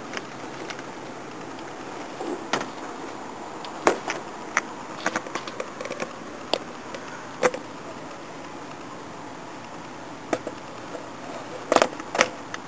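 Scattered sharp clicks and light knocks of the air filter housing and its fittings being handled and fitted onto the Weber 32/36 carburettor, about a dozen in all with a quick pair near the end, over a steady hiss. The engine is not running.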